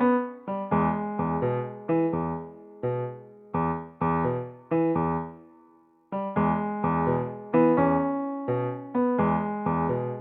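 Background music played on an electric piano: a tune of separate struck notes, each fading away, with a short break about six seconds in before it picks up again.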